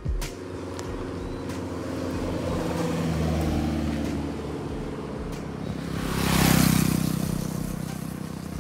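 A motor vehicle on the road approaching and passing close by: a steady engine hum that grows louder, peaks with tyre and engine noise about six and a half seconds in, then fades.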